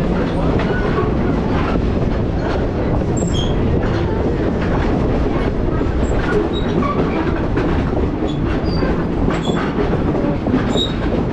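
Train rolling along the track: a steady rumble with repeated clicks of the wheels over the rails.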